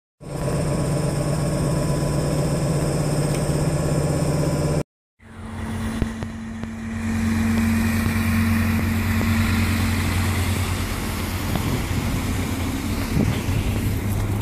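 Steady hum of a stationary train at a platform. After a short break comes the steady low drone of a red diesel railcar's engine running.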